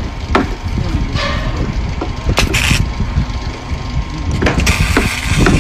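Light metal knocks and clinks from handling a rebar welding clamp and a curved sheet-metal piece on vertical steel bars, over a steady low rumble, with a short hiss about halfway through and a longer one near the end.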